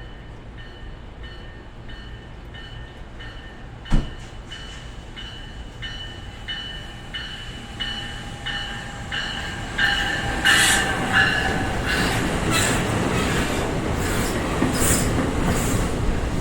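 NJ Transit train approaching with its bell ringing about twice a second, growing louder, then rolling past with a rising rumble and rapid wheel clicks from about ten seconds in. A single sharp knock sounds about four seconds in.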